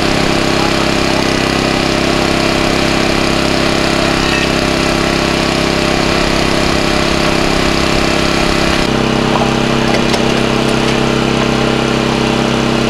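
Small petrol engine of a portable hydraulic power unit for the jaws of life, running steadily to drive the rescue tools; its note changes about nine seconds in.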